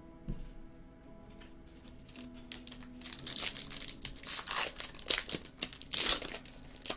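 Bowman Chrome trading-card pack wrapper being torn open and crinkled by hand, starting about three seconds in, with sharp crackles near the end. A soft knock comes near the start, and faint background music plays underneath.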